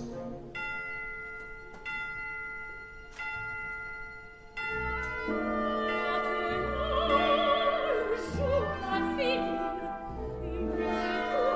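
Opera orchestra playing: four held chords struck one after another about every second and a half, each fading, then a fuller, louder passage with a singer's vibrato line from about six seconds in.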